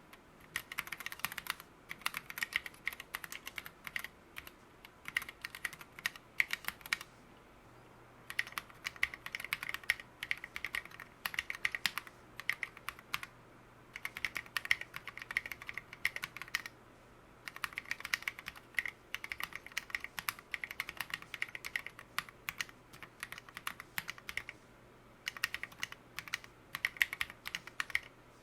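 Typing on an OLKB Planck ortholinear keyboard fitted with lubed Gateron Merlot 60 g linear switches and SA-profile keycaps. Quick runs of keystroke clacks come in bursts, with short pauses about seven, thirteen, seventeen and twenty-four seconds in.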